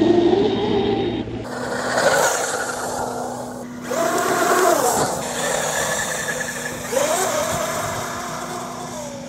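Electric motor of a Traxxas UDR RC truck whining, rising and falling in pitch in three short bursts of throttle, over a hiss of wind and tyres on dirt. The battery is nearly flat and the low-voltage protection is cutting in, as the driver thinks.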